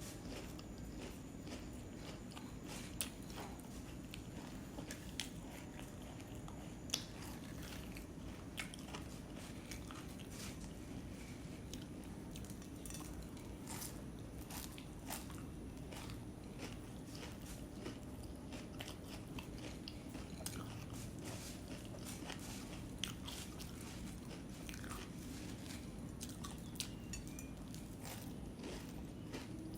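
A person eating puffed rice (muri) with jackfruit: continual crunchy bites and chewing close to the microphone, with a few louder snaps.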